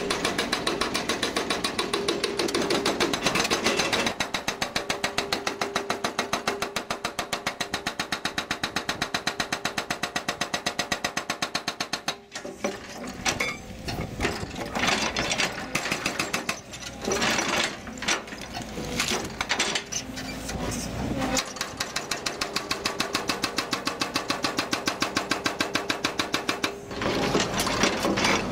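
Hydraulic rock breaker on a JCB JS160 tracked excavator hammering rock, with the excavator's diesel engine running beneath. The blows come rapid and even, turn irregular for a stretch about midway, then become rapid and even again near the end.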